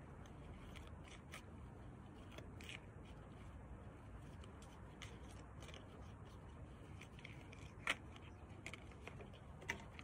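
Quiet outdoor background: a steady low rumble under scattered small clicks and ticks, with two sharper clicks near the end.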